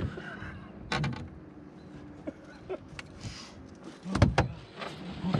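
Scattered knocks and clicks on a small boat's deck as a freshly netted lake trout and the landing net are handled, the loudest a pair of heavy thumps a little past four seconds in.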